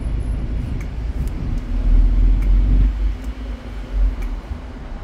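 Low rumble of a sightseeing bus moving through city traffic, swelling louder for about a second in the middle.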